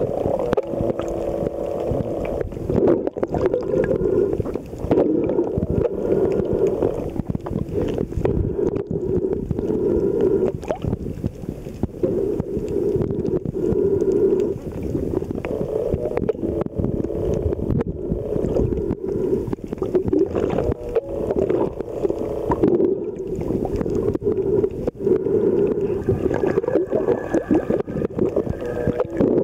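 Underwater water noise heard through the camera: a steady low rush that swells and eases every couple of seconds, peppered with short crackling clicks.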